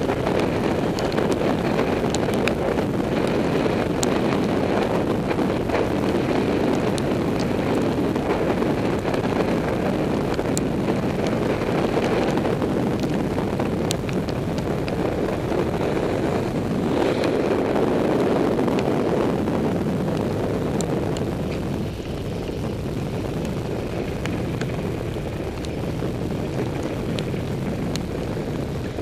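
Wind rushing over the microphone of a camera mounted on a moving road bike, together with road noise, as a steady loud rush. It eases somewhat in the last third as the bike slows.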